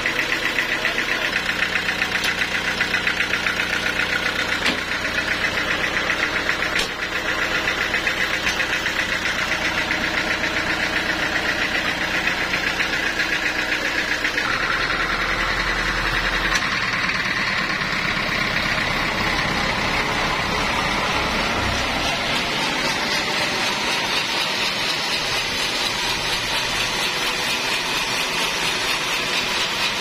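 Stationary engine running steadily with an even, fast knocking beat, driving a band saw through V-belts. Its sound shifts about halfway through, turning rougher and noisier after that.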